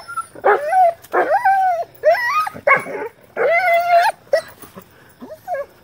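A leashed dog whining and yipping in a string of short, high, wavering cries, loudest in the first four seconds and softer near the end: excited frustration at being held back from chasing a rabbit it has spotted.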